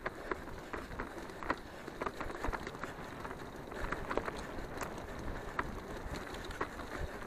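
Mountain bike rolling along a dirt trail while a dog in harness runs ahead and tows it: a steady low rumble of tyres and riding noise, with frequent sharp, irregular rattling clicks as the bike goes over bumps.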